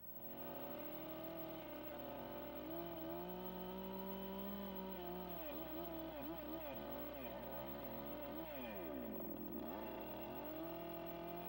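Two-stroke chainsaw running with its bar plunged into a squared timber. For several seconds in the middle the engine speed rises and falls repeatedly as the chain cuts, then it runs steady again near the end.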